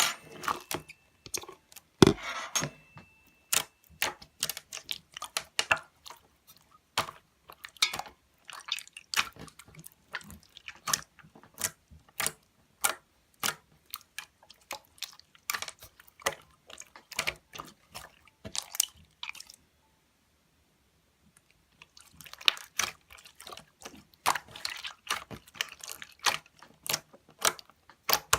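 Close, crisp clicks and crackles, a few a second, with a pause of about two seconds before they pick up again.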